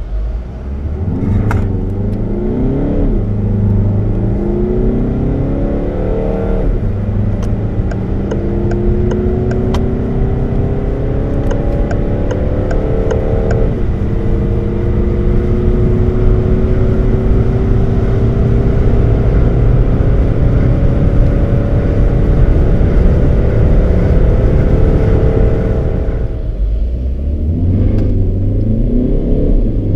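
Citroën DS5 BlueHDi 180's 2.0-litre four-cylinder turbodiesel, heard from inside the cabin, under hard acceleration from a standstill. Its pitch rises and drops back at each upshift of the six-speed automatic, three times in the first 14 seconds, then climbs steadily at high speed. Near the end the sound drops away suddenly and a second acceleration starts from low speed.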